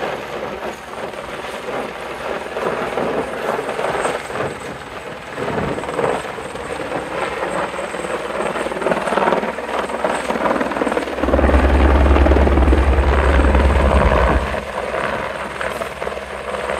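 Helicopter flying across the valley and descending to land, its rotor and engine running throughout. From about 11 to 14 seconds in, a loud low rumble rises over it, then drops away.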